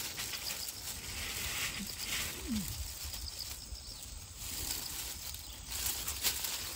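Rustling and crackling of dry grass, chestnut burrs and a plastic bag as chestnuts are picked up with metal tongs, with a few sharp clicks.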